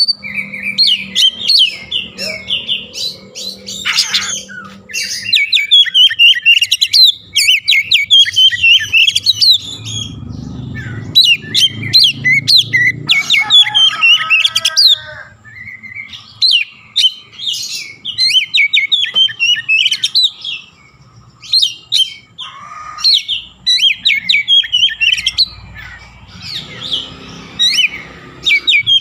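Oriental magpie-robin singing a loud, rapid, varied song of chirps, trills and whistles, with lower, harsher notes about halfway through copying the call of the Javan myna (jalak kebo).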